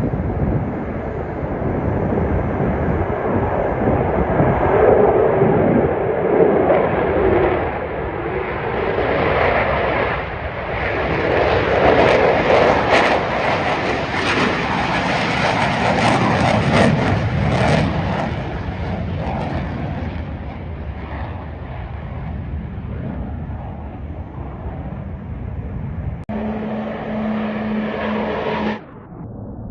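Airplane flying past: loud rushing engine noise that swells twice, loudest about halfway through, then slowly fades. Near the end a different steady hum comes in abruptly and cuts off just as suddenly.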